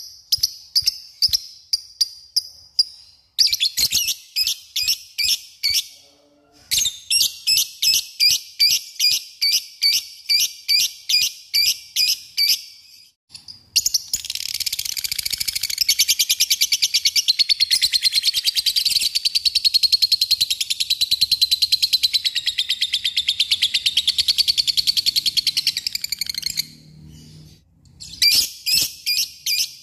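Peach-faced lovebird calling: sharp high chirps repeated a few times a second, then about halfway through a long unbroken rapid chattering trill, the 'ngekek', lasting over ten seconds. Chirps return near the end.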